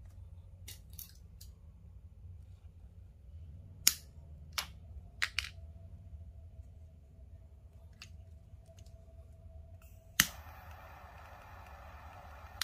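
A few sharp clicks and taps from handling, then, about ten seconds in, the click of a jet torch lighter's igniter and the steady hiss of its flame for the last couple of seconds.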